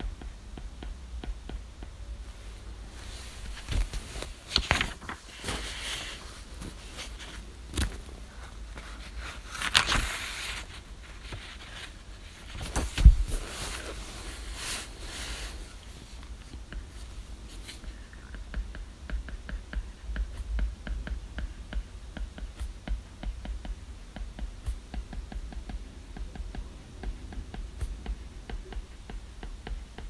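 Stylus tip tapping and scratching on an iPad's glass screen in a run of small ticks while writing, with rustling of bedding and a few louder knocks of movement in the first half.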